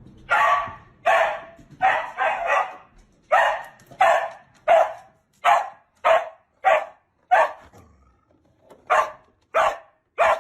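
A dog barking again and again, about fifteen sharp barks in quick succession with a short pause about three-quarters through. The barks are angry protests at being kept from going outside.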